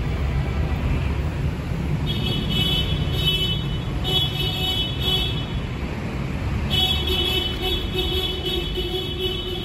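Steady low rumble of passing street traffic. Over it, a high, pulsing, fluttering tone sounds three times: about two seconds in, about four seconds in, and for nearly three seconds starting about seven seconds in.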